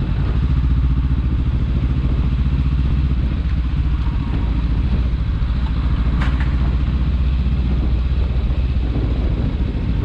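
Honda CBR500's parallel-twin engine running steadily at low speed, with no revving. A brief sharp knock comes about six seconds in.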